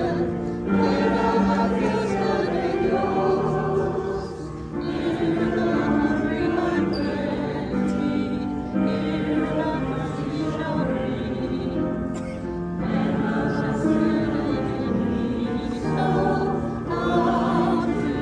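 Choir singing a hymn in phrases of about four seconds, with short breaks between them.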